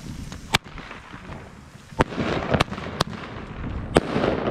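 Firecrackers going off: five sharp bangs spread over about four seconds, with a crackling hiss building from about two seconds in.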